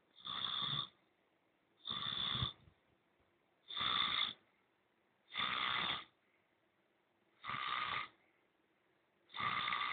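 A man snoring in his sleep: short rasping snores at an even pace, one about every two seconds, six in all.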